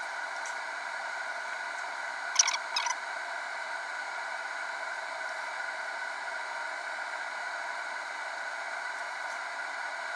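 Steady whirring hiss with a faint whine from the cooling fan of an electronic DC load while it sinks a 3 A battery discharge. A brief chirp sounds about two and a half seconds in.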